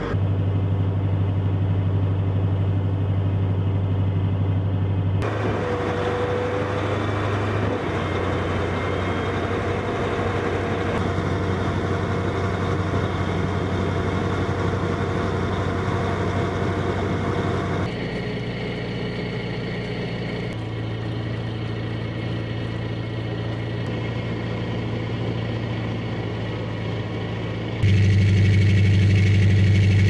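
Marine Corps amphibious assault vehicle (AAV) swimming on a river: the steady low drone of its diesel engine with water rushing along the hull. The sound shifts abruptly several times and is loudest in the last couple of seconds.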